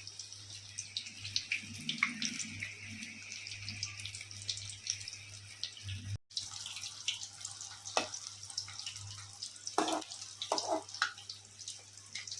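Batter-coated ripe banana pieces sizzling in hot oil, a steady hiss with many small crackles and pops. The sound drops out for a moment about six seconds in.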